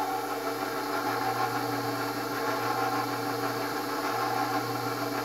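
KitchenAid Professional 5 Plus stand mixer running steadily with no load, its motor and gears giving an even hum. It runs smoothly, without the earlier grinding, now that the chewed-up worm gear, broken sleeve bearing and cracked transmission housing have been replaced and regreased.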